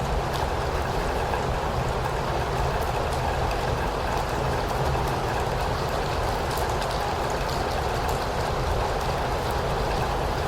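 Steady rain falling: an even hiss with a low rumble beneath it and scattered ticks of single drops.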